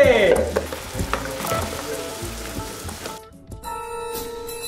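Food frying in a hot pan on the stove, a steady sizzle. About three seconds in it cuts off abruptly and gives way to soft background music with held notes.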